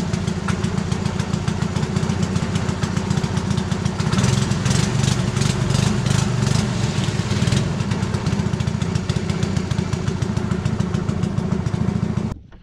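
Small boat's engine running steadily under way, a dense low drone, with a stretch of rapid scratchy rattling from about four to seven and a half seconds in. The sound cuts off suddenly near the end.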